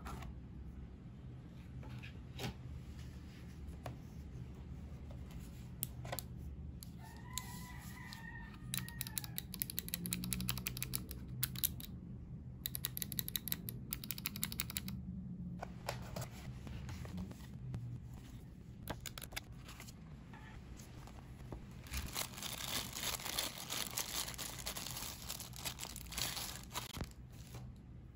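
Keys of a Vissles LP85 low-profile optical-mechanical keyboard pressed in quick runs of light clicks. Near the end comes a stretch of plastic packaging crinkling and tearing.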